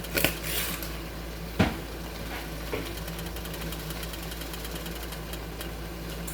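Steady kitchen hum with fine rapid ticking, a brief shaking rustle at the start and a sharp knock about a second and a half in. This fits seasoning being shaken into a pot and the container knocked down on the counter.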